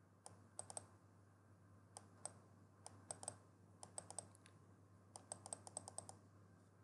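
Faint, quick runs of clicks from a computer's input controls as a PDF document is scrolled through, three to six clicks at a time, several runs over the few seconds.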